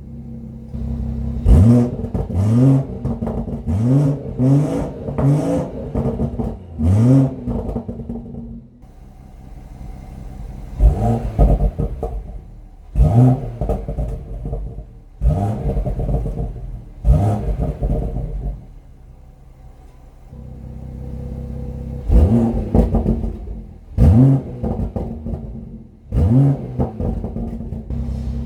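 BMW M140i's B58 turbocharged straight-six revved through its exhaust in quick throttle blips, each a sharp rise and fall in pitch. The blips come in three runs of several revs, with the engine settling back to a steady idle between runs.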